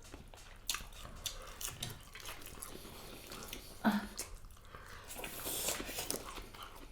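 Close-up eating sounds: a person chewing a mouthful of rice and curry, with irregular wet clicks and smacks. There is a short, louder smack with a brief low hum about four seconds in.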